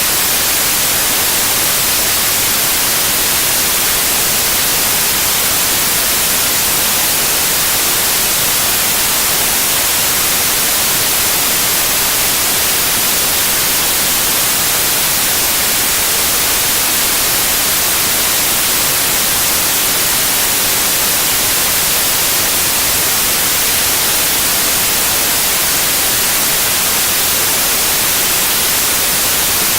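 Steady, loud white noise: an even, unchanging hiss with most of its energy in the high frequencies.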